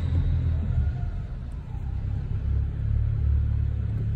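A car moving slowly makes a steady low rumble. It is the noise a worn, wobbling drive belt tensioner makes.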